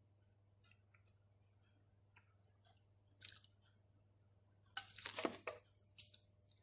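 A person chewing pizza close to the microphone, with faint soft mouth clicks. Near-quiet at first, with a louder cluster of sudden noisy sounds about five seconds in.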